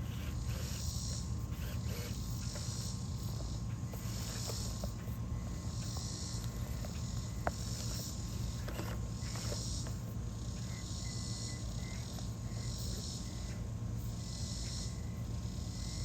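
Insects calling outdoors in a high buzzing chorus that swells and fades about every one and a half seconds, over a steady low rumble.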